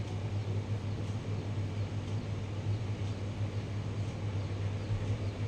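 Steady low hum under a faint even hiss.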